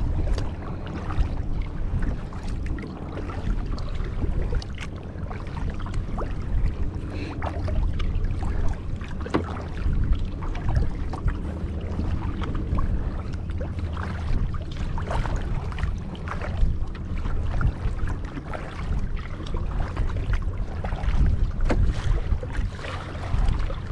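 Wind buffeting the microphone in a steady low rumble, over frequent short splashes and drips of water from a kayak paddle being worked against a headwind.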